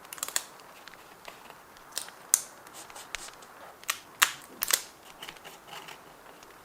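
Paper and stationery being handled during journal decorating: irregular crisp clicks and paper rustles, the loudest cluster about two-thirds of the way in, over a faint steady hiss.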